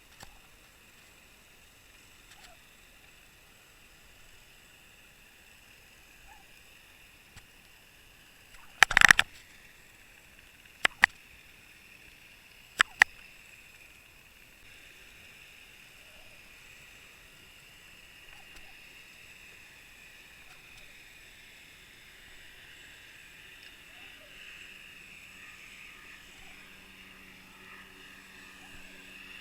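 Underwater camera recording: a faint steady hiss with a thin high whine, broken by a cluster of sharp knocks about nine seconds in and two single sharp clicks a couple of seconds apart after it.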